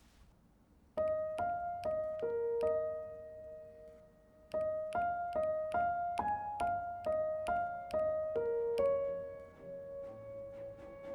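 Solo piano playing a slow melody, one note at a time at about two notes a second, with a brief pause about four seconds in and a held note near the end.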